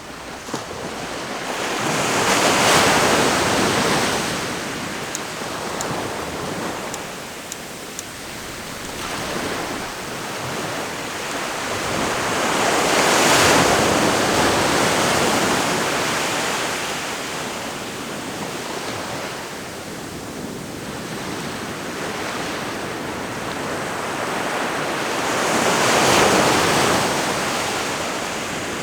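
Ocean waves breaking on a shore: a steady rushing wash that swells into three crashing surges, about ten to thirteen seconds apart.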